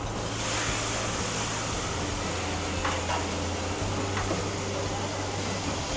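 Steady low hum and hiss of ventilation, with a faint click about three seconds in.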